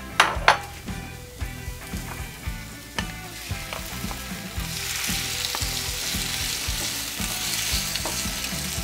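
Diced onion frying in oil in a frying pan, with two sharp clicks near the start. About halfway through, diced tomato goes into the pan and the sizzle grows louder and hissier as it is stirred with a spatula.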